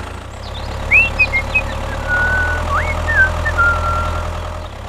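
Tractor engine idling steadily with a low hum. High whistled chirps sound over it: a few short rising and falling ones about a second in, then two longer held notes.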